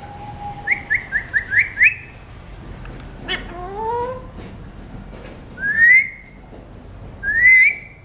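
Alexandrine parakeets calling and whistling: a quick run of about six short rising notes, a single gliding call, then two loud rising whistles near the end.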